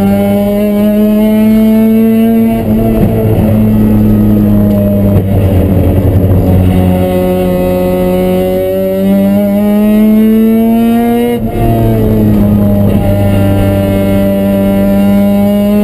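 Mazda RX-7's rotary engine at full throttle, heard from inside the cabin. Its pitch climbs, falls away into a rougher, noisier stretch for a few seconds as the driver comes off the power, climbs again, drops sharply about two-thirds of the way in at a gear change, then climbs once more.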